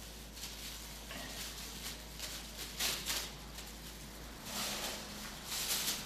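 Clear plastic bag crinkling and rustling as hands open and handle it, in irregular crackly bursts, loudest about three seconds in and again near the end.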